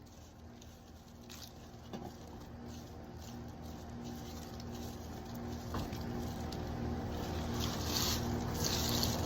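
An engine running steadily with a low hum, growing gradually louder, with a few light clicks.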